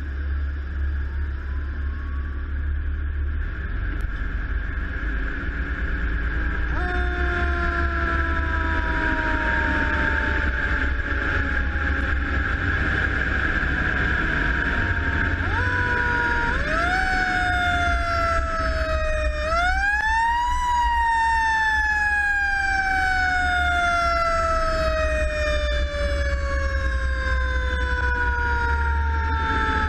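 Seagrave fire engine responding with its siren: the siren comes in about seven seconds in with a slowly falling wail, is wound up several times in quick rising sweeps, then winds down in one long slow fall, over the steady rumble of the truck's diesel engine.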